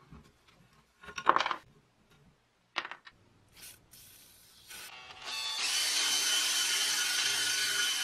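Cordless drill spinning a wire wheel brush against a rusty steel car horn, a steady whir and scrub that spins up about five seconds in and is the loudest sound. Before it, metal parts knock as the horn is handled, and an aerosol lubricant spray hisses briefly at the horn's rusted nut.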